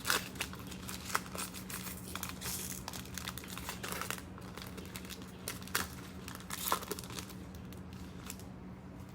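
A 2021 Panini Mosaic soccer trading-card pack being torn open and its foil wrapper crinkled, in irregular crackles that thin out near the end. A steady low hum runs underneath.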